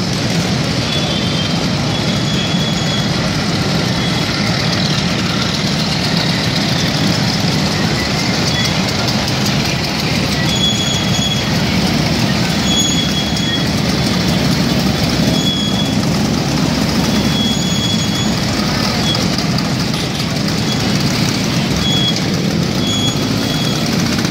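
A procession of classic Vespa scooters riding past, many small two-stroke engines running together in a steady, loud, continuous mass of engine noise. Short high-pitched tones sound over it again and again.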